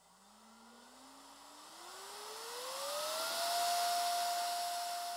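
Small blower fan pushing air through a hose and a resin-printed air-amplifier nozzle as it spins up. Its whine rises steadily in pitch for about three seconds and then holds, over a growing rush of air.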